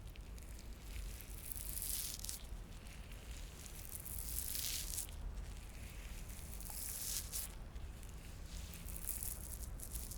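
Soft swishing and rubbing of a gloved hand working the jaw muscle in slow downward strokes, a swish every two to three seconds.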